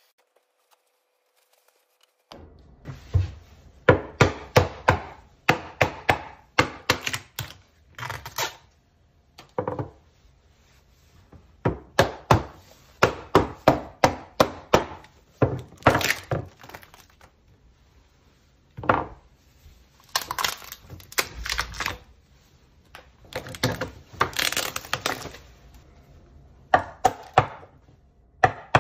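Wood being struck by a hand tool in quick runs of sharp knocks, about three or four a second, with short pauses between the runs. The knocks start about two seconds in.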